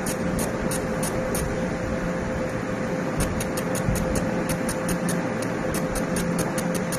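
Fiber laser marking machine engraving aluminium pigeon leg rings: a steady fan hum with a constant tone, and short high-pitched hissing pulses about three or four a second that stop for a second or so before starting again.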